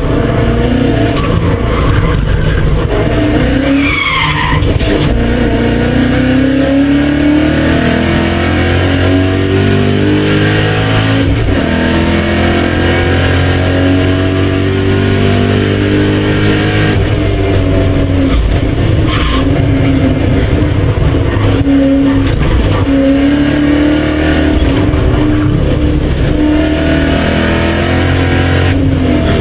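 BMW E39 M5's 4.9-litre S62 V8 under hard acceleration, its note climbing in pitch, dropping sharply at a gear change about eleven seconds in, then climbing again. The tyres squeal briefly about four seconds in.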